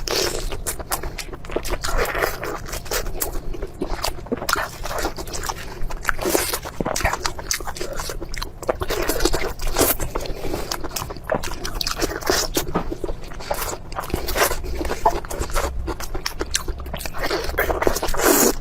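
Close-miked eating sounds: a person biting and chewing food, with a quick, irregular string of crunches, smacks and clicks.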